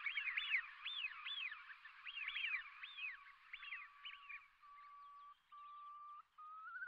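Eurasian oystercatchers piping: a quick run of high, arched 'kleep' whistles, several a second, thinning out after about four seconds into a few flat held tones that step up in pitch near the end.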